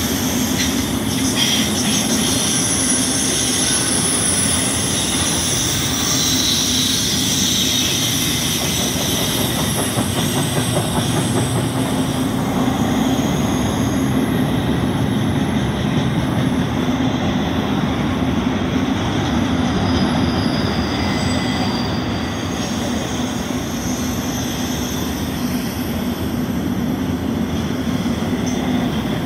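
Double-stack intermodal well cars rolling past: a steady loud rumble of steel wheels on rail, with high-pitched wheel squeal that comes and goes.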